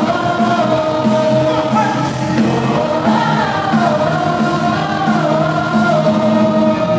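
Live band music, a pop-rock song with a singing voice carrying a wavering melody over the band, recorded from the audience in a concert hall.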